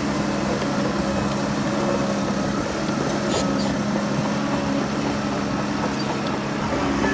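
Heavy diesel engine of earthmoving machinery running steadily at a constant pitch.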